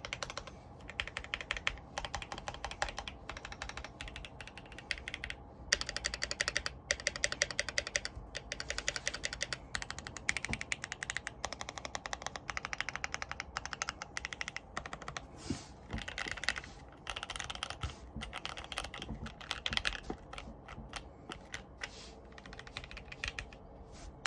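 Keychron Q1 mechanical keyboard being typed on, with fast runs of keystrokes broken by short pauses. Its switches are lubed and filmed Banana Split linears (205g0 lube), capped with GMK doubleshot keycaps.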